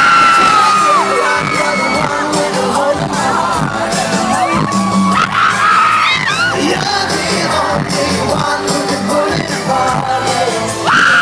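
Live pop band playing through the stage PA: a male singer's voice over electric guitar, keyboard and drums.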